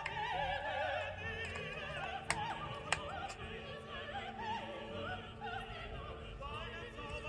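Background classical music: an operatic voice singing with wide vibrato over orchestral accompaniment. Two short clicks cut through it a couple of seconds in.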